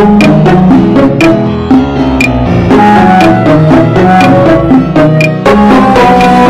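Background music: a melody over a bass line, with a sharp percussive click about twice a second.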